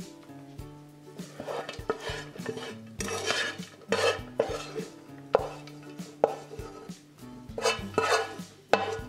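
Wooden spoon scraping and knocking against a frying pan and a metal loaf tin as a chunky mushroom-and-walnut mixture is pushed from pan to tin, in irregular scrapes and clatters. The loudest scrapes come about three to four seconds in and again near the end.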